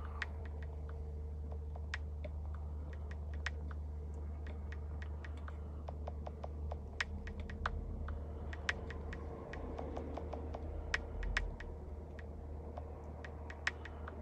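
Light, irregular typing clicks scattered throughout, over a steady low hum.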